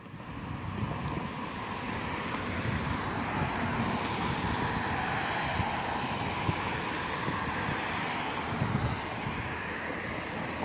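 Road traffic passing close by: a steady wash of car tyre and engine noise that builds over the first few seconds and then holds.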